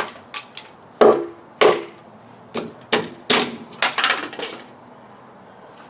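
A steel tomahawk, the CRKT Woods Chogan with a carbon-steel head and hickory handle, chopping into a piece of cedar with short wrist-action strokes to split it. There are about a dozen sharp wooden knocks in quick, uneven succession over the first four and a half seconds.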